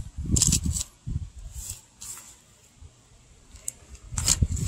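Rustling and scraping from a fillet knife cutting a walleye and from hands moving the fish on newspaper: short bursts in the first second, a few more, a quiet stretch, then more rustling near the end.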